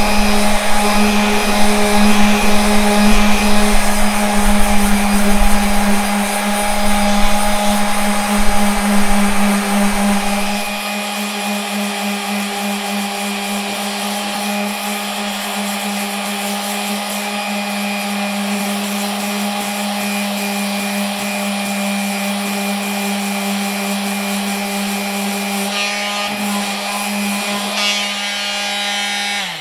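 Corded electric detail sander running steadily against a recurve bow limb, sanding off the old cracked clear coat. It is rougher and louder for the first ten seconds, then runs steadier and a little quieter, and switches off sharply near the end.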